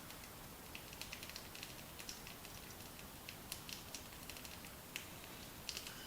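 Faint, irregular light ticks and clicks from hand work on an engine fitting.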